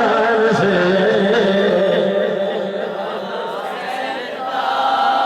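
A man's voice chanting in a drawn-out melodic style, holding long wavering notes; it softens in the middle and swells again near the end.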